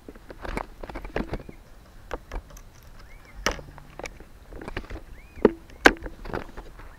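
Footsteps crunching over dry grass, twigs and leaf litter, an irregular run of sharp crackles and scuffs, a few of them louder.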